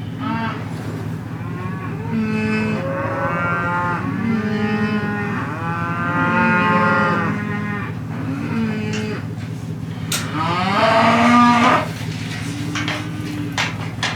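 Several cattle mooing, long drawn-out calls overlapping one after another, the loudest one about two-thirds of the way through.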